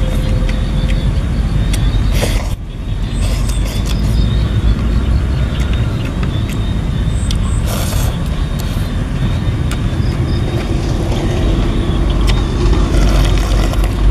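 A loud, steady low rumble runs under everything, with a man slurping noodles from a bowl, loudly about two seconds in and again about eight seconds in.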